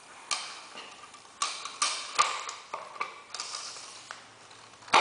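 Sharp metal clicks and clacks from a DeWalt DCGG571 cordless grease gun as its plunger rod is pulled back and the gun is turned over by hand: about half a dozen uneven clicks with a short metallic ring, and a louder clack at the very end.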